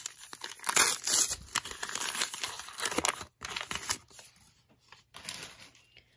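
Foil wrapper of a 1991 Upper Deck baseball card pack being torn open by hand and crinkled as the cards are pulled out. The tearing is loudest about a second in, and the crinkling dies away near the end.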